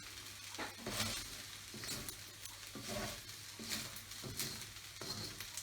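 Fried rice being stir-fried in a pan: repeated scraping and tossing strokes of the spatula, roughly one a second, over a light sizzle.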